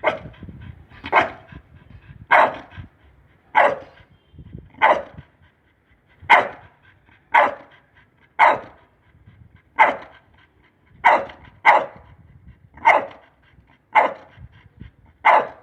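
Pit bull barking on the "speak" command: about fourteen single barks, roughly one a second.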